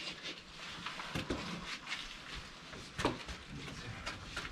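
Scattered scuffs and knocks of footsteps on rock and grit, the sharpest knock about three seconds in.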